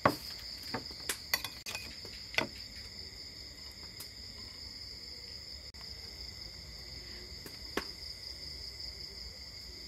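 Steady, high-pitched chirring of crickets, with a few sharp clicks of a spoon against a plate, the clearest about two seconds in and again near eight seconds.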